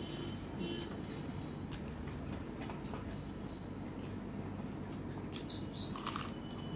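Fingers mixing and squishing rice on a metal plate, making small sticky clicks and squelches. Near the end there are wet mouth and lip sounds as a handful is eaten.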